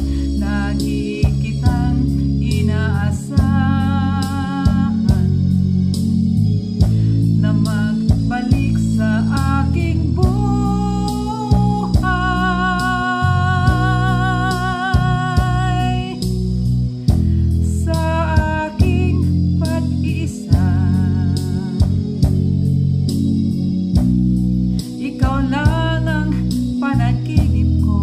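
A woman singing a ballad over instrumental backing music with a steady beat. She holds long notes with a wavering vibrato, the longest starting about twelve seconds in and lasting some four seconds.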